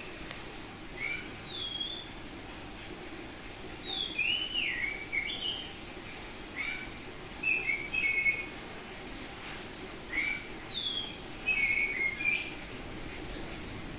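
Oriental magpie-robin (kacer) singing loud, clear whistled phrases, short bursts of gliding notes that rise and fall, with brief pauses between phrases.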